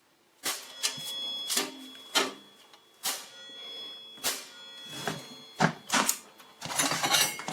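A mallet striking the steel bed rails of a chop saw again and again, irregular knocks about every half second to a second, several leaving a metallic ring. The blows are bending the saw's out-of-true rails and fence back toward flat.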